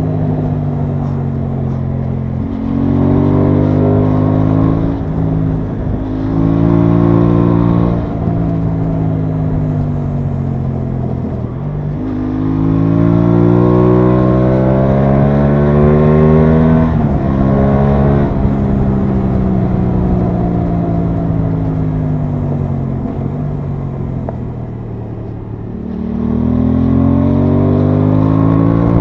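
Aprilia Tuono 660's parallel-twin engine heard from the saddle under way, pulling up through the gears: its pitch climbs in several runs and drops at each gear change. It eases off and winds down twice as the bike slows, then pulls again near the end.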